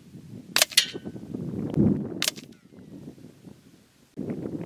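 Two shots from a Hatsan Jet II .22 PCP air carbine, about a second and a half apart. The first is a sharp crack followed at once by a second crack. Gusty wind rumbles on the microphone underneath, strongest about two seconds in.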